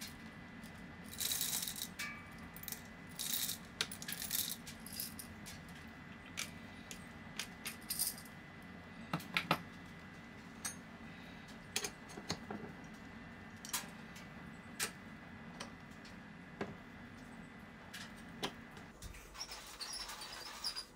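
Coffee beans poured from small glass tubes into a stainless hand coffee grinder: short rattling pours of beans, with scattered sharp clicks of glass and metal as tubes and grinder are handled.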